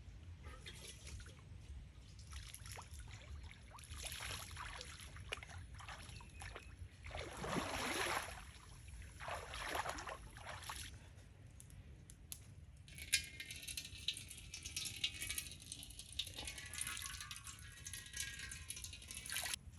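Water pouring and sloshing in several swelling bursts, the loudest about eight seconds in; from about thirteen seconds a dense, high crackling patter takes over.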